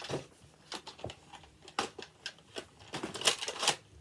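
Irregular sharp plastic clicks and knocks from toy foam-dart guns being handled, with a louder cluster of clicks about three seconds in.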